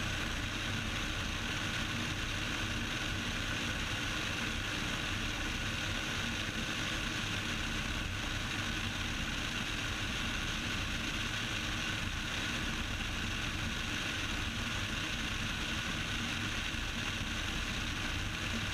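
Steady drone of a Cessna 172's piston engine and airflow in flight, heard inside the cockpit, unchanging throughout.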